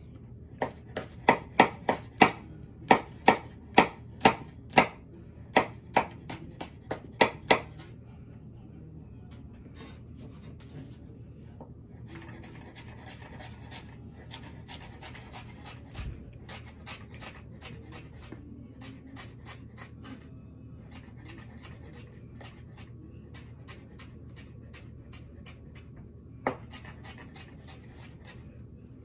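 Kitchen knife chopping on a cutting board: sharp knocks about two a second for the first eight seconds, then softer, scattered taps with one louder knock near the end.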